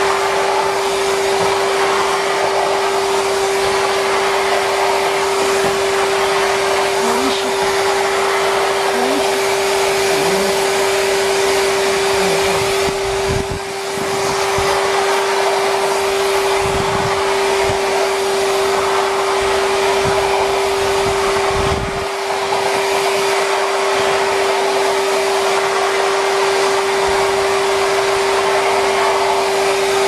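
Numatic Henry Wash wash-vacuum running steadily as its wand sprays and sucks: a constant motor whine over rushing air, dipping briefly twice, a little under halfway through and again about two-thirds of the way in.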